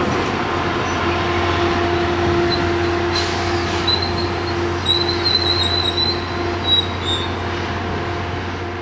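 Bombardier bilevel commuter coaches rolling slowly past as the train arrives, a steady rumble with a constant low hum. High-pitched squealing from the running gear comes in about four seconds in and lasts about three seconds.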